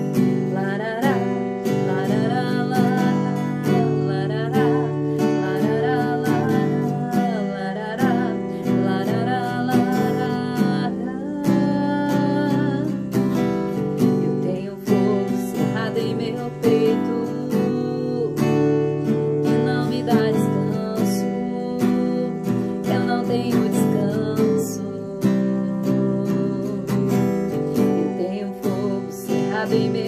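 A woman singing, accompanied by a strummed acoustic guitar in a steady rhythm.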